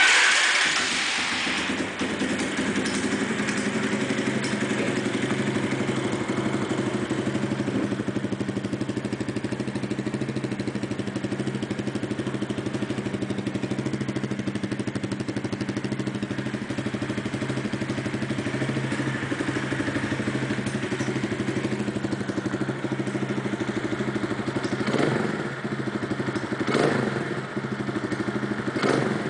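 AJP PR4 200 enduro motorcycle's single-cylinder engine idling steadily, with a few short blips of the throttle near the end.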